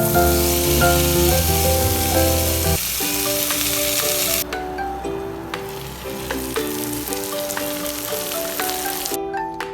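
Food sizzling as it fries in a hot pan, over light background music. The sizzle drops to a quieter level about halfway through and stops shortly before the end.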